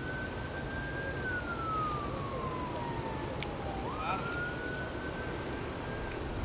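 Siren wailing: a single tone holds high, slides slowly down over about three seconds, then swoops back up and holds again.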